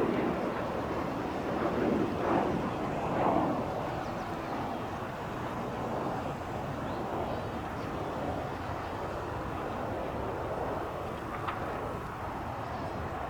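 Steady engine noise of a jet airliner at the airport, with wind on the microphone; louder over the first few seconds, then even.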